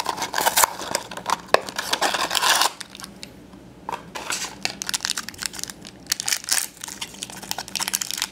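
A cardboard mini-figure blind box being opened by hand, then its foil blind bag crinkled and torn open, with dense crackling. The crackling stops briefly about three seconds in and resumes about a second later.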